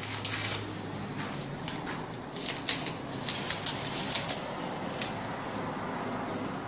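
Masking tape being peeled off around the edges of wall switch plates after painting: a run of short, irregular crackles and tearing sounds.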